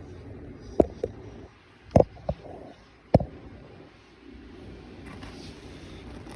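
Cosmetics packaging and products being handled: about five sharp taps and knocks in the first three seconds, as items and boxes are set down and picked up, then a quieter stretch of light handling.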